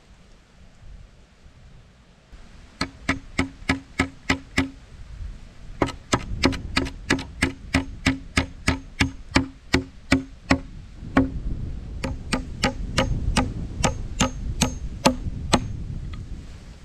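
Quick, even hammer blows from the back of a hatchet striking the joint of a log pole frame, about three to four a second in three runs, each blow with a short ring.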